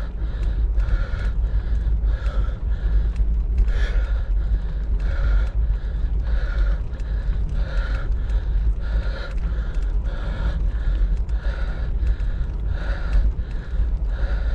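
A cyclist breathing hard and rhythmically, about three breaths every two seconds, over a steady low wind rumble on the microphone.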